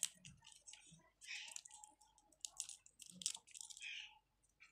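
Faint crackling and rustling of dry garlic skins being peeled off halved cloves by hand, with scattered small clicks.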